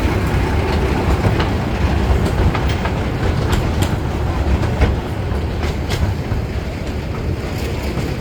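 Small museum toy train running along its track: a steady low rumble of the cars, with irregular clicks of the wheels over rail joints.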